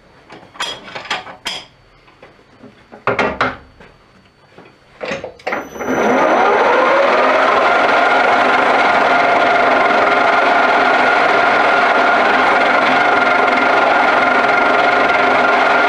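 Metal lathe with a tailstock turret head: a few clicks and knocks as the turret is handled, then about six seconds in the lathe starts, its whine rising briefly and settling into a steady run of motor and gears.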